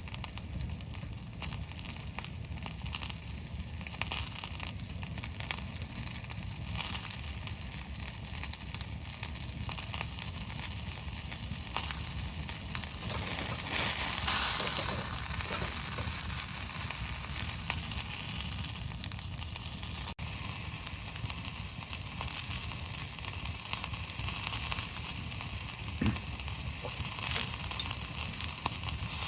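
Food sizzling steadily while it cooks, a continuous hiss with fine crackles that swells louder about halfway through.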